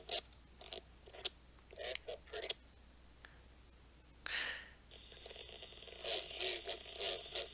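Crackling static from a software-defined radio receiver tuned across the 2-metre band, coming in short irregular bursts. From about five seconds in, a steady band of hiss joins it.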